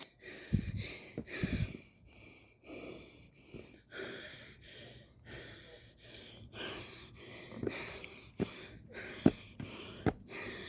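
A hiker breathing hard in and out on a steep uphill climb, about one breath a second, with a few short taps near the end.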